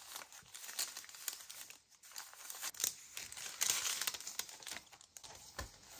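Thin deli paper prints crinkling and rustling in short, irregular bursts as a handful is shuffled and slid into a page pocket of a handmade journal.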